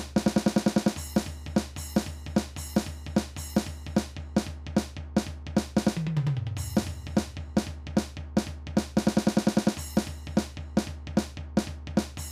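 Drum kit alone playing a steady beat of bass drum and snare with cymbal accents. A rapid sixteenth-note snare run comes at the start, a fill falls down the toms about six seconds in, and another fast snare run comes near the end.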